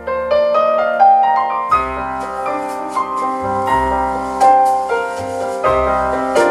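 Music playing from an LP on a Kronos Limited Edition turntable: an instrumental break between sung verses of a children's song. Single notes climb one after another, then bass and fuller chords come in about a second and a half in.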